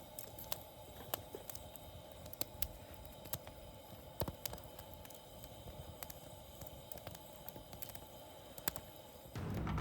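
Wood fire crackling in a fire pit: irregular sharp pops and clicks over a faint steady hiss.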